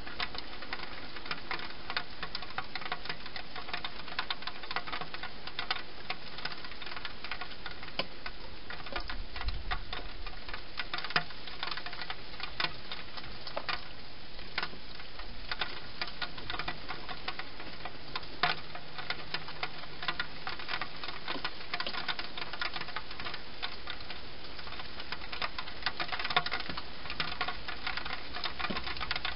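Wild hedgehog chewing and crunching dry food inside a plastic feeding box: a dense, irregular run of sharp clicks and crunches that does not let up.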